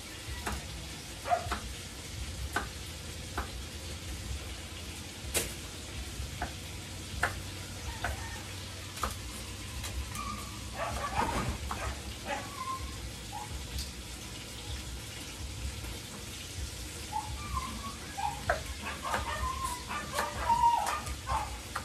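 Kitchen knife chopping leafy greens on a wooden cutting board, in irregular taps. A steady low hiss runs underneath, and short high-pitched calls come in the middle and again near the end.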